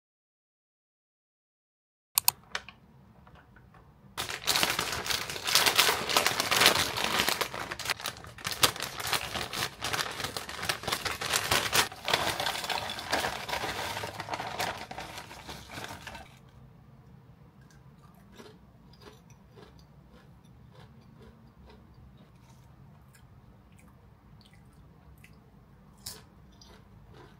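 Potato chips tumbling out of a crinkly snack bag into a ceramic bowl: a loud, dense rattling crackle of chips and bag for about twelve seconds, then only faint scattered clicks of chips settling.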